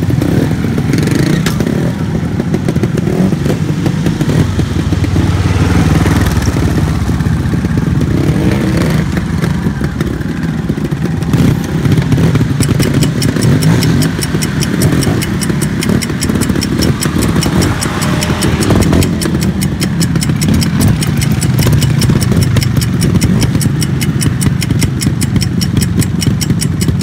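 Trials motorcycle engines idling steadily. About halfway through, a fast, even ticking joins in.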